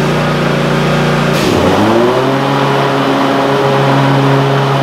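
Cub Cadet Ultima ZT1 zero-turn mower engine running loud. Its speed dips and changes about a second and a half in, then holds steady, the noise loud enough to hurt the ears without earplugs.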